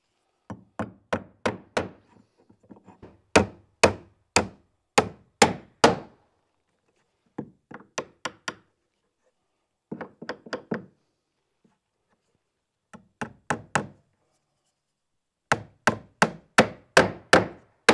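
Hand hammer driving nails into a wooden sign board, in runs of light taps and harder blows. The hardest blows come in two runs, a few seconds in and near the end, at about two a second.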